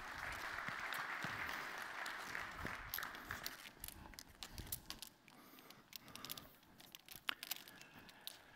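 Faint rustling noise for the first few seconds, then scattered light clicks and knocks as plastic training hoops are gathered up off an indoor court surface.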